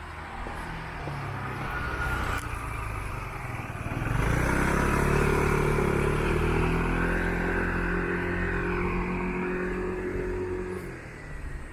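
A vehicle passing close by: a motor hum with a steady pitch swells about four seconds in, holds for several seconds, and fades near the end.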